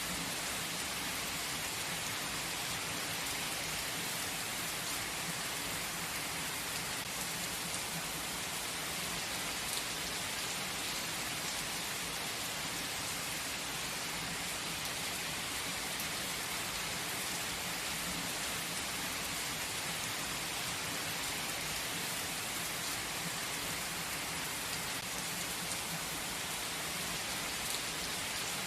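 Gentle rain falling steadily: an even hiss with the odd sharper drop.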